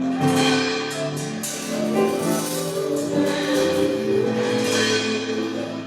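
Soft instrumental worship music with sustained chords under the prayer.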